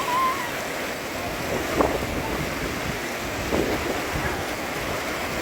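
Swollen floodwater of a mountain river rushing steadily, with two brief sharper sounds, about two and three and a half seconds in.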